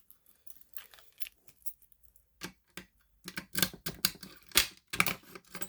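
Clicks and clacks of a Simplex 2099-9799 fire alarm pull station being handled and reset. A few scattered clicks at first, then a quick run of them from about three seconds in.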